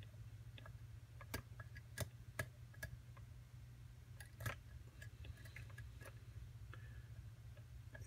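Faint, irregular metallic clicks and ticks of a lock pick working the pins of a Euro cylinder lock under tension during single-pin picking, over a steady low hum.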